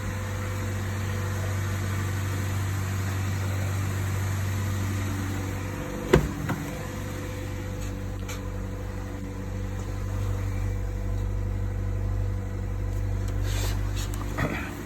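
2013 Chevrolet Sonic's four-cylinder engine idling steadily on its first cold start of the day, with one sharp knock about six seconds in.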